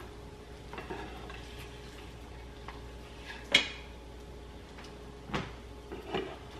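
Spatula scraping and tapping in a frying pan of eggs, with one sharp clink about three and a half seconds in and another knock near the end, over a faint sizzle of the eggs frying.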